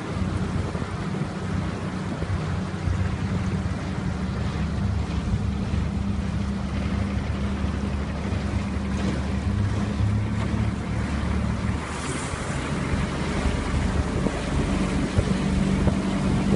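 A small boat's motor running steadily with a low, even hum as the boat cruises, with water rushing past the hull and wind buffeting the microphone.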